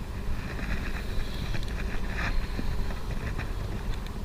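Steady wind rumble on the microphone, with a few faint short ticks.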